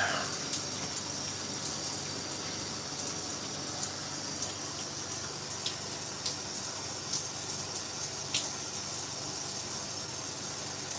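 Shower running: a steady hiss of water spraying and falling in a shower stall, with a few faint ticks of drops.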